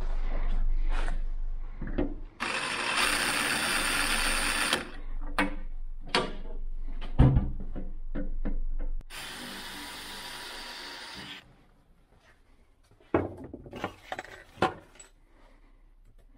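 DeWalt cordless drill running in two bursts of about two seconds each, drilling into the metal switchboard box to fit a hasp. Clicks and knocks of handling come between the bursts and near the end.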